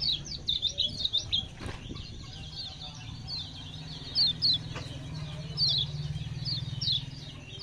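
Kecial kuning (a white-eye songbird) singing its short, fast song: quick high chirps, each sliding downward. They come in a rapid run over the first second and a half, then in scattered pairs and small groups. A low steady hum runs underneath.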